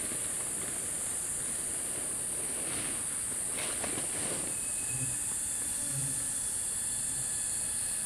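Steady high-pitched insect chorus droning without a break. From about three seconds in it is joined by a few brief rustles and then three soft, low thuds about a second apart.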